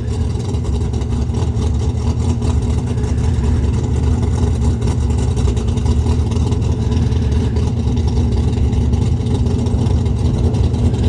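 Pontiac Trans Am's engine running steadily at a low, even rumble, its pitch holding level, sounding mean.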